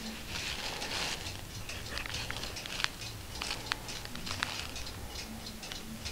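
Cotton-gloved fingers rubbing and shifting on the paper pages of a small 1709 book: a soft rustling, with a few sharp little ticks partway through.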